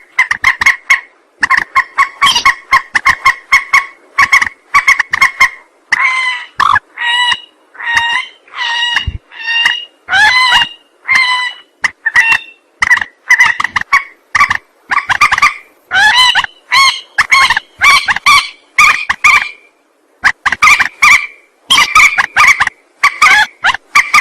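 Mandar (a rail-family waterbird) calling in quick runs of short, loud, honking notes, about two to three a second with brief pauses, some notes bending up and down in pitch. This is a lure call used to draw mandar birds in.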